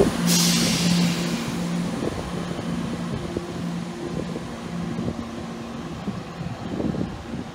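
Class 170 Turbostar diesel multiple unit's underfloor diesel engines running with a steady low hum as the train pulls away, the sound fading as it draws off. A short burst of hiss comes just after the start.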